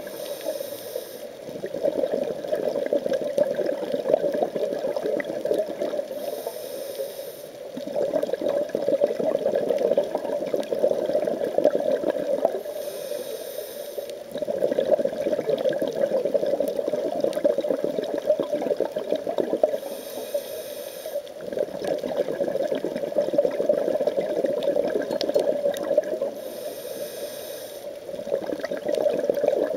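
Scuba diver breathing through a regulator underwater, five breaths in all. Each breath is a short hiss of inhaling, followed by a long rush of exhaled bubbles, repeating about every six and a half seconds.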